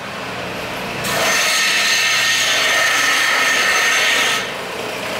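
A shop power tool grinding metal: a steady, loud, hissing whine that starts about a second in and cuts off abruptly about four seconds in, with a quieter machine hum before and after.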